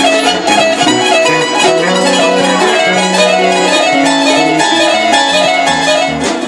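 Live band playing an instrumental passage: quick picked guitar notes over bass and drums.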